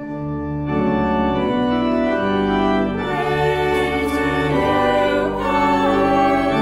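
Church organ playing slow, sustained chords that change several times.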